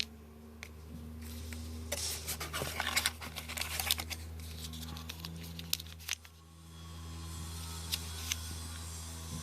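Packaging being handled: a few seconds of rustling, scratching and sharp clicks about two seconds in, over a steady low electrical hum.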